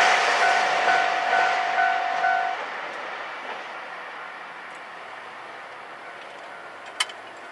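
HOT7000 Super Hakuto diesel express train running away past a level crossing, its wheel-and-rail noise fading over the first few seconds, while the crossing's warning bell rings in a steady repeating pattern and stops about two and a half seconds in. Then only a low background remains, with one sharp click about seven seconds in.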